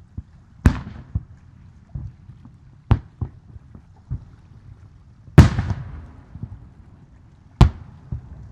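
Aerial fireworks shells bursting overhead: four sharp booms about two seconds apart. The loudest comes a little past halfway and has a crackling tail. Lesser low thuds and a rumbling echo fill the gaps between.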